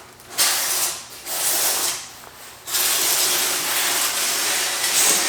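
EPS foam insulation panels from a garage door kit being handled: scratchy, hissing scrapes of foam and packaging, two short ones and then a steady one about two and a half seconds long.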